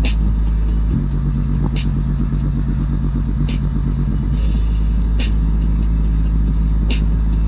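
Heavy bass music played loud through two linked JBL portable speakers, an Xtreme 2 and a Charge 4, in low-frequency mode at 80% volume, their passive radiators pumping. A deep steady bass line shifts note about a second in, with a sharp hit about every second and a half to two seconds.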